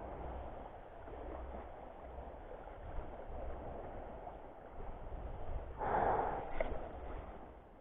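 Steady wind on the microphone and small waves lapping at the shoreline, with a short loud rushing sound about six seconds in as an arm swings close past the camera, followed by a brief sharp click.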